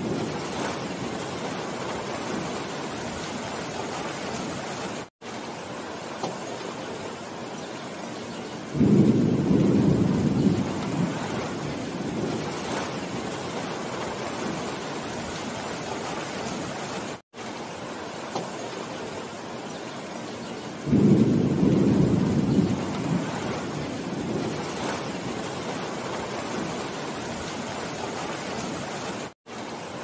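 Steady rain falling on the leaves of a forest canopy, an even hiss. A louder low rumble swells up twice, about nine and twenty-one seconds in, each lasting a few seconds. The sound cuts out for an instant three times, about twelve seconds apart.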